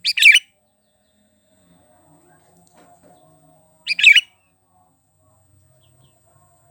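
Sooty-headed bulbul (kutilang) giving two short, loud calls, one right at the start and another about four seconds later.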